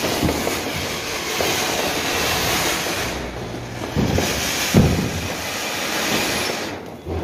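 A ground fountain firecracker (flower pot) hissing steadily as it sprays sparks. A couple of dull thumps come about four to five seconds in, and the hiss dies down near the end.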